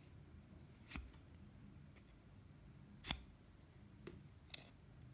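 Near silence broken by four faint, short clicks, the sharpest about three seconds in: flat-nose pliers knocking against a plastic Nerf priming handle while steel putty is pressed into a hole.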